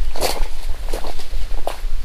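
Footsteps on dry fallen leaves and stony ground, three steps at an even walking pace.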